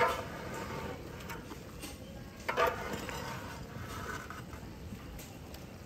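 Metal ladle stirring and scraping in a large aluminium cooking pot of steaming mutton curry, with two louder clatters, one right at the start and one about two and a half seconds in.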